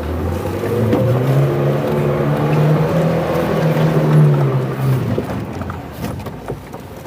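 2015 Leopaard Black King Kong's 2.2-litre engine running under load off-road, a steady drone that holds level and eases off about five seconds in.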